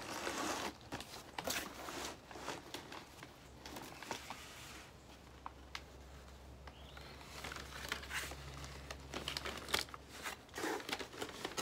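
Cardboard shipping box being handled and its flaps opened, with intermittent rustling and crinkling of cardboard and packing paper, sparser around the middle.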